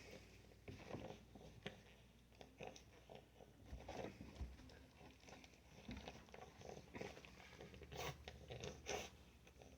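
Newborn goat kids suckling on a milk bottle: faint, irregular sucking and smacking clicks.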